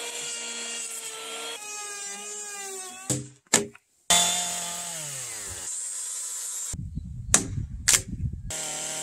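Electric hand planer running on a squared log beam, its motor pitch shifting as it cuts, broken by edits. Loud sharp knocks of wood, twice near the end as a chisel clears out the waste between saw kerfs for a joint.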